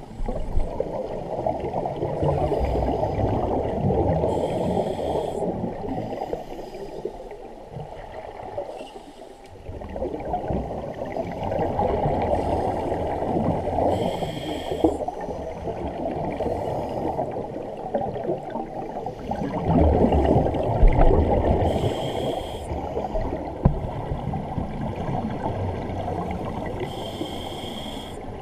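Scuba diver breathing through a regulator underwater: short hissing inhalations every few seconds and long streams of bubbling exhaled air.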